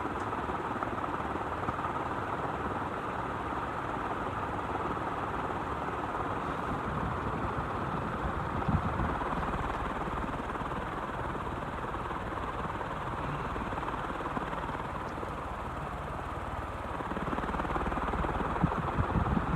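48-inch Evergo industrial ceiling fan running on high: a steady rush of air from the spinning blades. The fan is well balanced and quiet.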